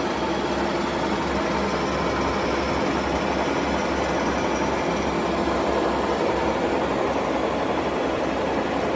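Steady hum of heavy machinery running, an even drone with a few faint steady tones under it that does not change.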